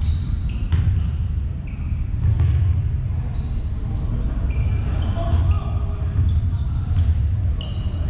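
Basketball play on an indoor court: many short, high sneaker squeaks on the floor, with a few ball bounces over a steady low rumble.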